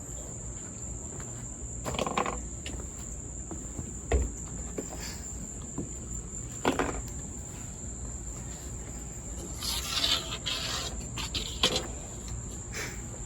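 Insects, crickets by their sound, chirring steadily at a high pitch, with a scattering of short knocks and clatters over it, the loudest around the middle and near the end.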